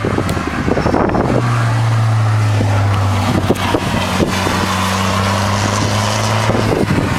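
Car engine on a race circuit droning at a steady pitch for about five seconds, then dropping away near the end, with wind buffeting the microphone throughout.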